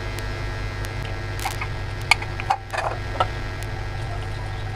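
Steady low electrical hum throughout. A few light clicks and knocks of a steel plate against a plastic mixing bowl about one and a half to three seconds in, as sliced onion is tipped into the bowl.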